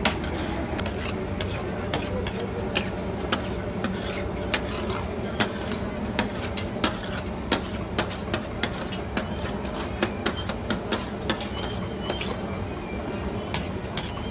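Metal spatula clinking and scraping against a large flat metal griddle of frying meat, in sharp irregular taps about one or two a second.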